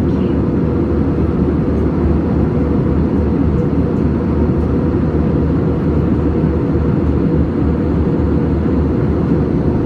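Steady low rumble of an Airbus A320-family airliner's jet engines and rushing air heard inside the cabin during the climb after takeoff.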